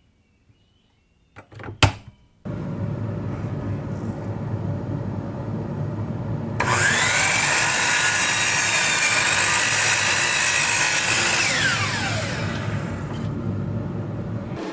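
Power miter saw: a couple of knocks as it is set, then the motor starts about two and a half seconds in and runs. About four seconds later the blade cuts into a 1x board at a 54-degree angle, adding a loud whine that drops in pitch as the cut ends.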